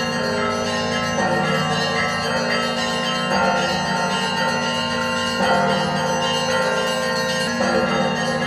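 Church bells ringing together, many tones sounding at once, with the pattern of strikes shifting about every two seconds.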